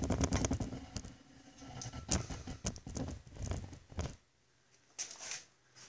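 Irregular rustling, scraping and light clicks of the camera being handled and repositioned. It goes quiet about four seconds in, then a few faint clicks follow near the end.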